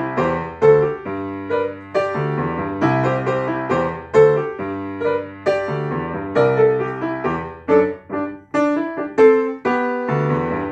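Upright acoustic piano played solo: chords over bass notes struck in a steady rhythm, each dying away before the next.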